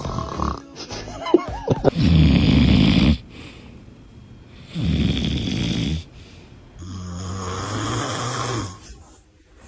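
A person snoring: three long snores in a row, the first about two seconds in and the last ending shortly before the close.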